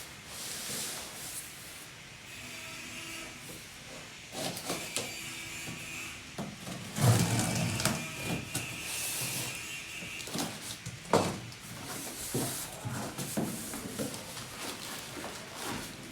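Handling noise of boxed equipment and packaging: irregular rustling and rubbing with scattered knocks and clicks, the loudest knocks about seven and eleven seconds in.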